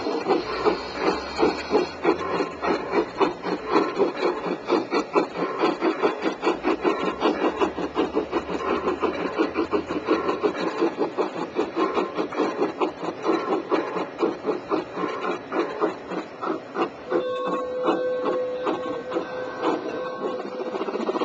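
Bachmann large-scale Shay model locomotive and its freight cars running along garden track: a fast, even clicking of wheels and geared trucks rolling over the rails. A steady pitched tone sounds for about three seconds near the end.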